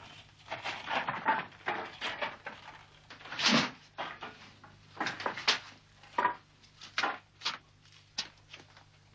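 Rummaging: an irregular run of knocks, clatters and rustles as objects and wooden furniture are handled, with a heavier thump about three and a half seconds in.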